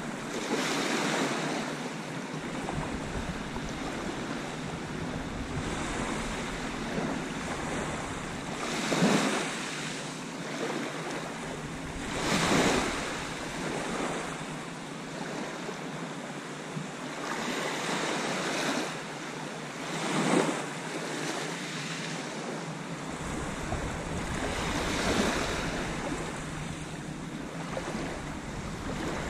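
Small waves breaking and washing up a shingle beach in a steady rush, with louder surges several times as bigger ones come in. Wind buffets the microphone.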